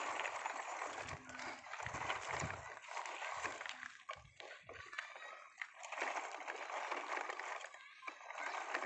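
Plastic toy trucks pulled on a string over gravel, their wheels rolling and scraping on loose stones with a steady crunching rattle, with low rumbling bursts in the first few seconds.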